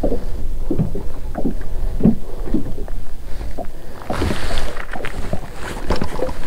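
Choppy lake water slapping against a plastic Hobie fishing kayak's hull in short, irregular knocks, over a steady low rumble of wind on the microphone.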